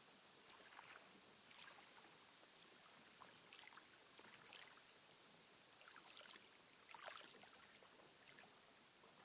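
Faint lake water lapping, a few small irregular splashes over a steady hiss.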